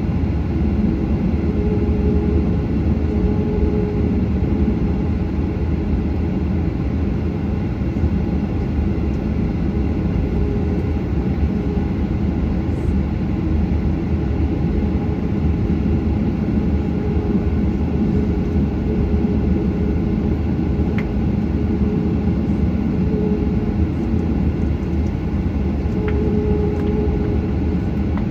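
Steady jet engine and airflow noise heard inside the cabin of a Boeing 737, with a faint wavering hum.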